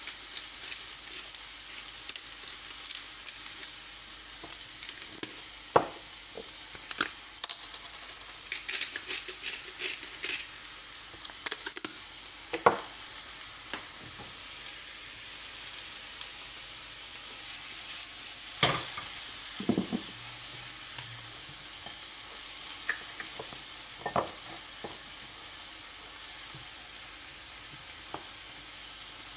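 Food sizzling steadily in a frying pan, with scattered knocks and scrapes of a utensil stirring against the pan, the loudest knock about two-thirds of the way in.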